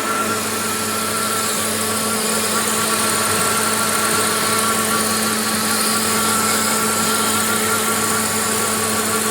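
2000 Dodge Durango's engine idling steadily and evenly, with no stumble or cut-out, after its engine computer connectors were cleaned to cure stalling when warm.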